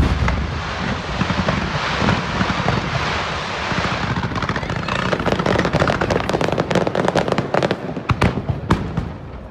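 A fireworks barrage: a rapid, dense crackling and popping of many bursting shells, thinning to a few separate pops near the end.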